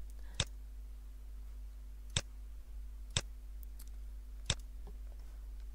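Four single computer mouse clicks, spaced a second or more apart, over a steady low hum.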